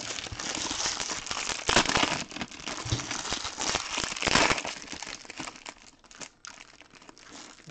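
Foil trading-card packs being torn open and crinkled by hand, with loud rips about two seconds in and again just after four seconds, growing quieter near the end.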